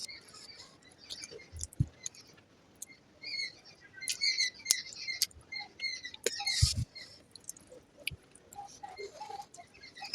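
Close-miked eating sounds of someone eating fried rice with egg curry: wet chewing, lip smacks and small mouth clicks, with a couple of soft low thuds.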